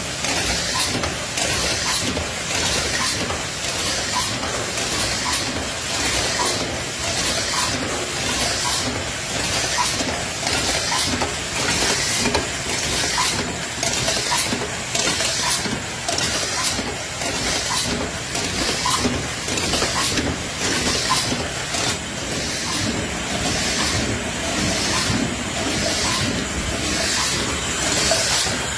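Automatic tube filling and cartoning machine running, with a regular hiss about every two-thirds of a second over steady mechanical running and light clicking.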